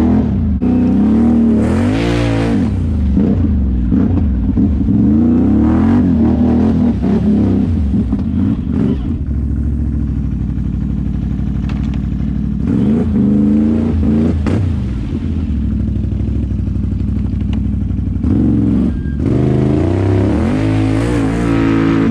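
Can-Am Outlander 850 XMR's V-twin engine revving up and down again and again while the ATV drives through mud. It has steadier stretches at lower revs around the middle.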